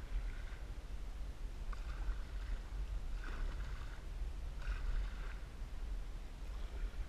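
Canoe paddle strokes in lake water: four swishing, splashing strokes about a second and a half apart, then a pause near the end, over a steady low rumble.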